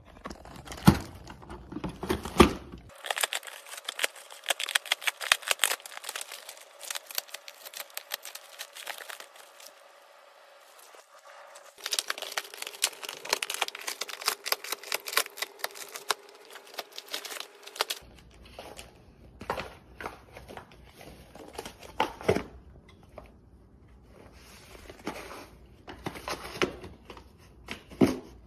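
A dog tearing open LEGO packaging with its teeth and paws: cardboard ripping and plastic bags of bricks crinkling, in a dense run of irregular rustles and sharp snaps.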